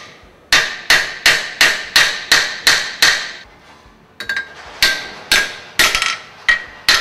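Ball-peen hammer striking the metal straps of a submersible pump assembly, about three quick blows a second, each ringing briefly, with a pause of about a second near the middle. The straps, twisted out of line by torquing, are being bent back so the washer sits flush.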